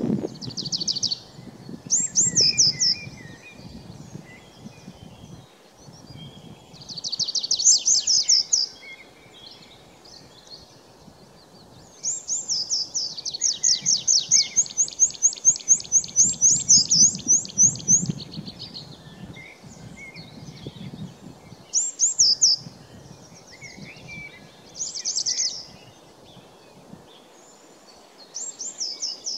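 A pipit singing from a perch: high, rapid series of repeated notes in phrases of one to two seconds, a few seconds apart, with one long run of about seven seconds about twelve seconds in. A faint low rumble lies underneath.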